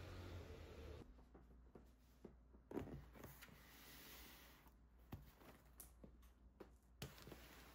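A steady low machine hum cuts off about a second in. Then a quiet room with a few soft knocks and scrapes as cardboard boxes are set down and stacked on a table, the clearest knock a little under three seconds in.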